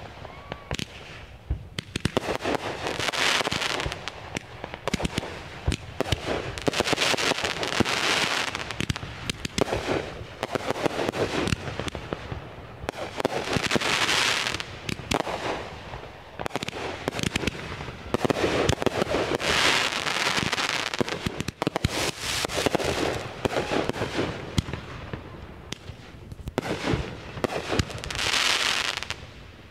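Consumer aerial fireworks going off shot after shot. Dense rapid pops and crackles swell into a louder burst every two to three seconds, with a short rising whistle near the start.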